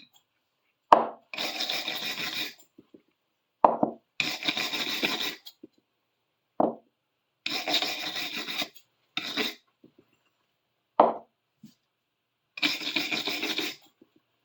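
Hand scrubbing or rubbing strokes on a metal tool: several separate strokes of about a second each, most starting with a short knock, with pauses between them.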